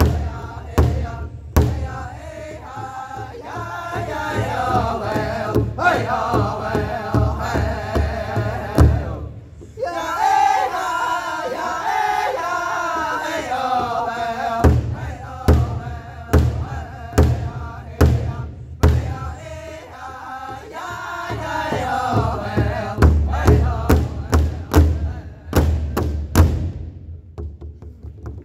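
Powwow drum group singing together while beating a large hide drum with padded sticks in a steady beat. The drum drops out for about five seconds in the middle while the voices carry on, then comes back, and the song ends shortly before the end.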